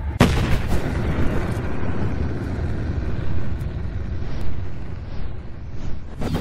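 Cinematic sound effects for a slow-motion bullet in flight: a sudden boom like a shot just after the start, then a long rumbling, rushing whoosh with sweeps rising in pitch, ending in a sharp impact near the end.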